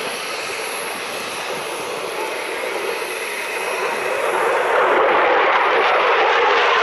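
F-16 fighter jet's single turbofan engine heard in a display pass, a steady rushing jet noise that grows louder about four to five seconds in as the jet comes nearer.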